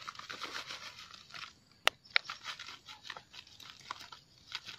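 Brown sugar pouring from a plastic bag into a glass bowl: a grainy rustle of sugar running out with the bag crinkling, and a few sharp ticks, the strongest about two seconds in.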